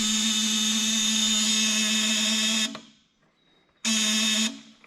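A steady electrical buzz at one fixed pitch with many overtones. It cuts off near three seconds in and comes back briefly about a second later.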